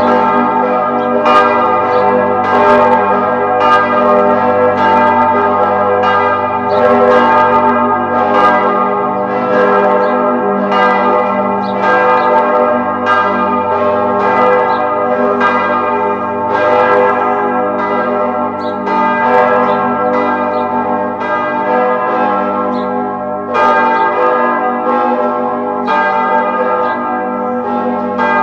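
Church bells ringing in a continuous peal: a fresh strike comes about every second, over the overlapping hum of the bells still sounding.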